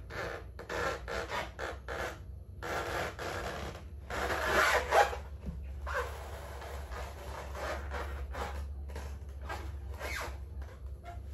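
Packing material being handled during an unboxing, rubbing and scraping in a run of short strokes that are loudest about four to five seconds in, over a low steady hum.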